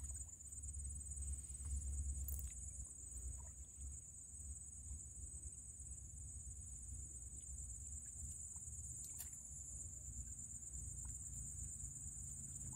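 Faint outdoor ambience: a steady high-pitched drone of insects with a low rumble underneath and two or three faint clicks.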